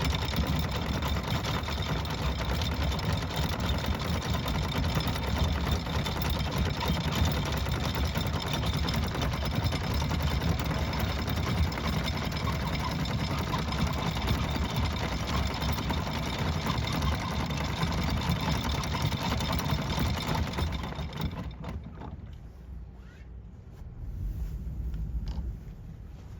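Motor yacht's engines running steadily under way. The noise falls away sharply about three-quarters of the way through.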